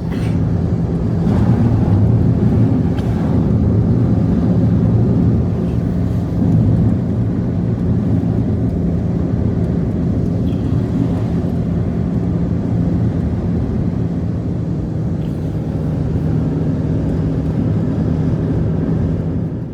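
A motor or engine running steadily at a constant speed, a loud low drone with a steady hum in it. It cuts in abruptly and stops abruptly.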